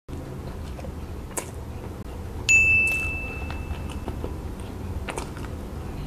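Close-up chewing of a soft steamed corn bun, with a few small mouth clicks. About two and a half seconds in, a single high ding sounds and fades away over about a second.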